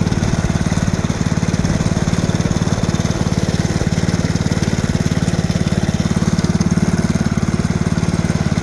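Small gasoline engine of a ride-on 7.5-inch-gauge locomotive running steadily while the locomotive travels along the track, with a rapid, even firing beat.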